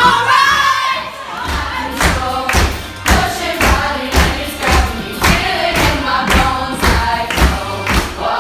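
Music with a steady thumping beat, about two beats a second, under singing voices.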